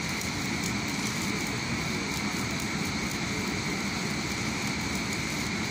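Stick-welding (shielded metal arc) arc burning steadily on a steel crane rail, a continuous even crackle with no breaks.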